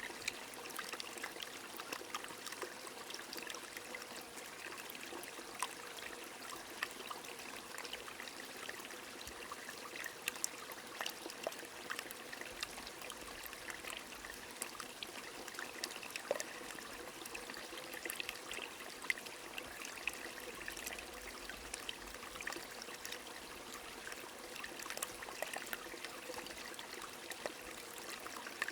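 A stream flowing steadily while rain falls: a continuous rush of running water, scattered with many small, sharp drop ticks.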